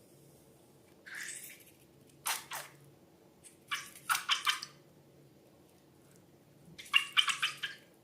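Slime being squished and worked by hand: short bursts of wet squelching with crackly clicks, coming in clusters about a second in, around four seconds in and again near the end.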